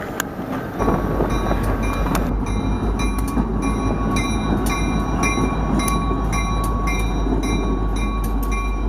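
Diesel locomotive rumbling steadily as it rolls over a street crossing, with a bell ringing about twice a second.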